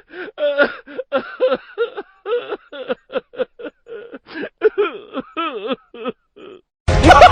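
A high-pitched laugh in a quick run of short bursts, the pitch wobbling up and down. Near the end it cuts to a much louder laugh over music.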